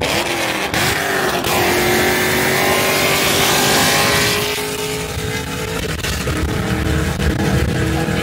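A 5th-gen Camaro SS V8 exhaust at hard throttle during a highway pull. Its pitch climbs steadily for about four seconds, then eases off. It is loud enough that the microphone gives out.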